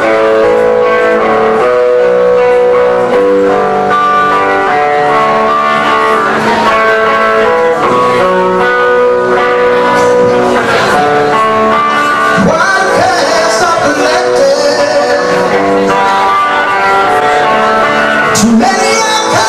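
Live rock band playing a song: electric guitars over drums, with a voice singing in the second half.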